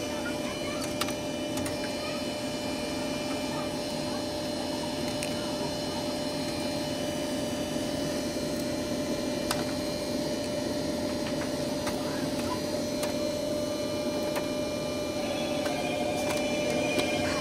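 Laser cutting machine running steadily as it cuts: an even mechanical hum with a constant tone over it, and a few faint clicks.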